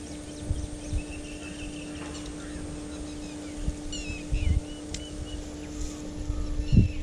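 Birds chirping now and then over a steady low hum, with soft bumps from the fish and line being handled about four and a half seconds in and near the end.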